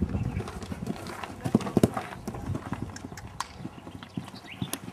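Horse hoofbeats: an irregular run of knocks and thuds, the loudest cluster about two seconds in.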